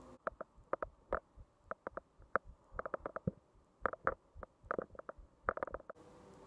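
An irregular series of short, sharp taps and knocks in quick clusters.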